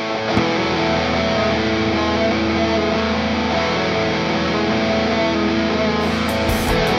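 Grunge rock ballad: distorted electric guitar and bass come in together with a hit just after the start and hold long, ringing chords. Near the end drums join with a steady beat.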